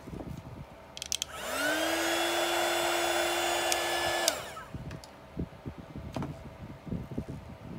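A small hand-held electric blower switches on about a second in. Its motor whine rises quickly to a steady pitch and runs with a rush of air for about three seconds, then winds down. Faint handling rustles come before and after.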